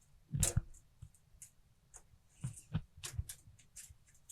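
A few light clicks and knocks: a short cluster just after the start, then several more about two and a half to three and a half seconds in.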